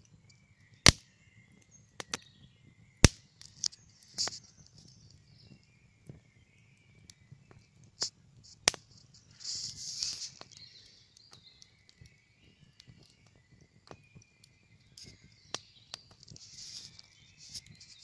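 Wood campfire crackling, with loud sharp pops about one and three seconds in and again past the middle, while songbirds sing in short bursts.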